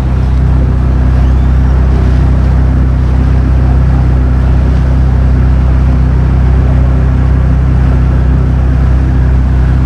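Motorboat engine running steadily while the boat is underway, a constant low drone with rushing noise over it.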